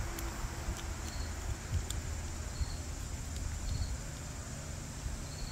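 Faint handling sounds as a Strike Industries Mass Driver compensator is screwed by hand onto a Glock barrel: a few light clicks over a low steady rumble. A short high chirp repeats about once a second.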